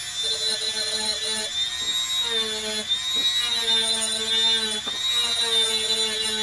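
A small high-speed rotary tool running with a steady high whine that sags in pitch a few times while it cleans up a multitester's metal battery tab. A lower tone comes and goes as it works.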